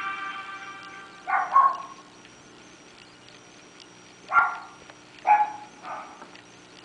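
A dog barking: two quick barks about a second in, then three more single barks spread over the last few seconds.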